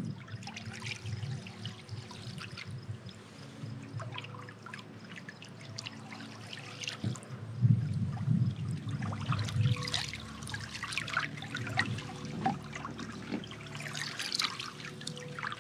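Canoe paddle strokes in calm lake water: water trickling and dripping off the paddle blade with light, irregular splashes.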